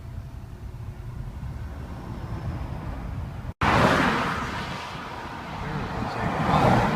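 Road noise of a vehicle driving: a steady low rumble, cut off abruptly about halfway, then a louder rushing road noise that fades a little and swells again near the end.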